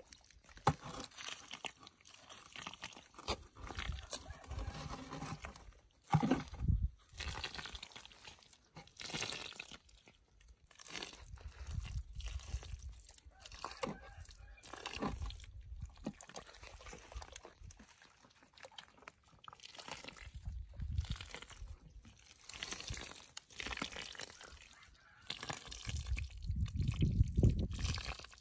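Bare hands digging into and scooping wet clay mud, in irregular bursts with short pauses between them.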